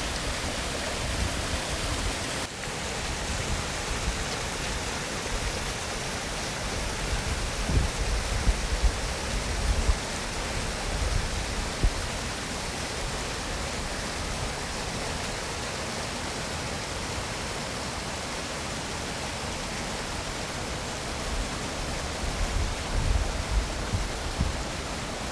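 Waterfall rushing as a steady hiss of falling water, with gusts of wind buffeting the microphone now and then, strongest around a third of the way in and near the end.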